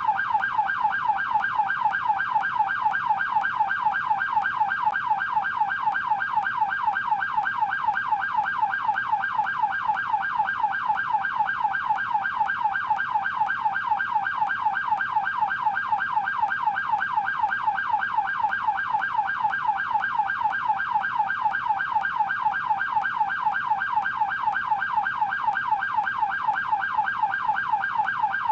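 Canadian police car siren in yelp mode: a tone sweeping rapidly up and down, several cycles a second, steady and unbroken.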